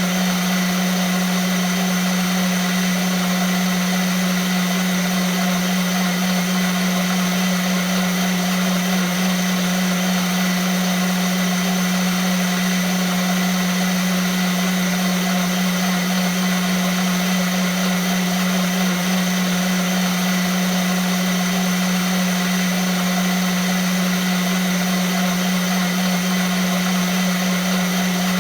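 Vitamix blender motor running at a constant high speed, a steady loud whirring hum with a strong low tone and a hissy rush above it, with no change in speed.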